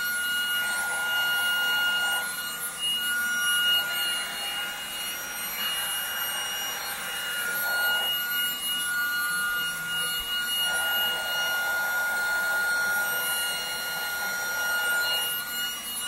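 Raycop Omni Air UV+ cordless stick vacuum running on carpet: a steady high-pitched motor whine, with a rushing sound that swells and fades as the floor head is pushed and pulled over the carpet.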